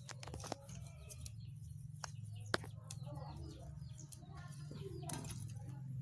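A few sharp clicks and taps of a machete blade working a thin bamboo strip, the loudest about two and a half seconds in, over a low steady hum.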